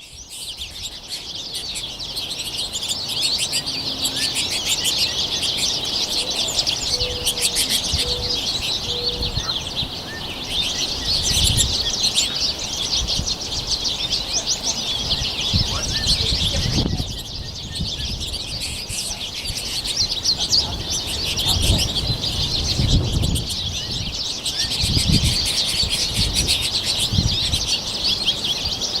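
A flock of finches chattering and twittering without pause, with bursts of wing flutter now and then.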